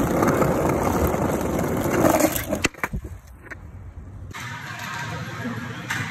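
Skateboard wheels rolling over brick paving with a loud, rough rumble. It ends in two sharp clacks a little under halfway through, and a much quieter rolling rumble follows.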